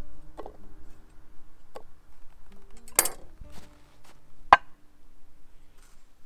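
A few sharp knocks and clinks of cookware, four in all, the loudest about four and a half seconds in, over soft background music with held notes.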